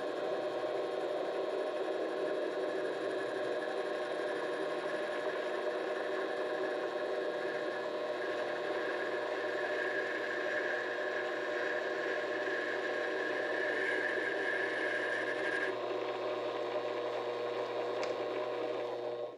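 Vevor 7x12 mini-lathe running steadily, its motor and gearing humming with several steady tones. A higher hiss over the hum ends about three-quarters of the way through, and the machine sound cuts off suddenly at the end.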